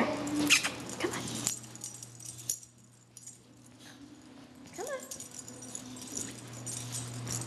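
Small dog whimpering in short rising whines, a few near the start and again about five seconds in: the distressed whimper of a dog frightened of being at the vet. A steady low hum sits underneath.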